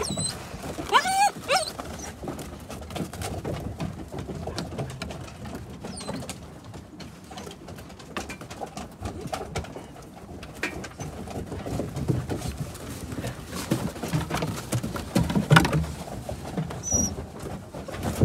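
Gerberian Shepsky (German shepherd–husky mix) puppies and an adult dog scuffling and pawing close by on a snowy wooden deck. There are a few short puppy whines, most of them about a second in, and the loudest scuffle comes near the end.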